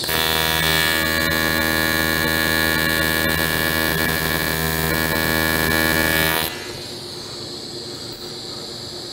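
AC TIG welding arc on cast aluminum, set to about 80 Hz, buzzing steadily for about six and a half seconds, then cutting off suddenly, leaving a quieter hiss.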